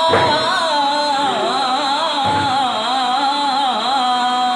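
Music: the wordless opening of a Pahari hill folk song, a single melody line that wavers and bends in pitch without a break.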